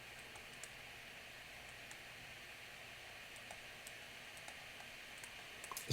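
Faint steady hiss of room tone, with a few faint scattered clicks.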